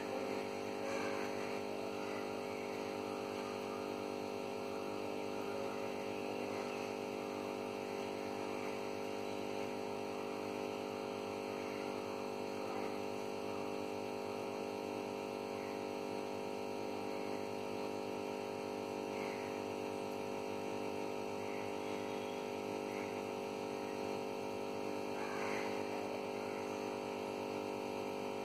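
Aquarium pump humming steadily on mains power, with faint bubbling of aerated water.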